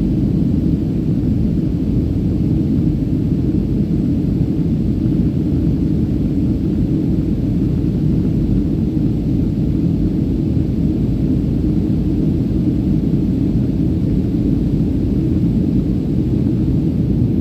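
Jet airliner cabin noise in flight: a steady, loud low rumble of engines and rushing air, heard inside the cabin at a window seat.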